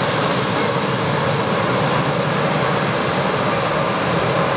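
Embraer 195's two General Electric CF34-10E turbofan engines running at taxi power: a steady jet whine and rush that stays level throughout.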